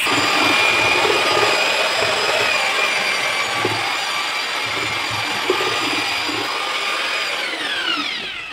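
Electric drill with a paddle mixer running at steady speed, stirring thick tile adhesive in a plastic bucket; its motor whine slides down in pitch near the end as the drill winds down.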